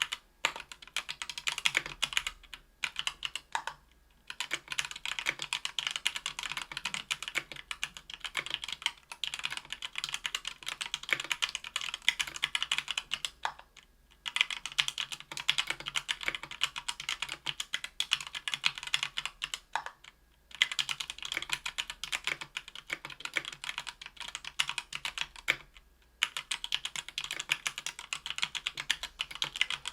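Fast, continuous typing on a Tofu 60% aluminium mechanical keyboard with stock, unlubed Thic Thock Marshmallow 68g linear switches on an aluminium plate with GMK Triumph Adler keycaps, broken by a few brief pauses.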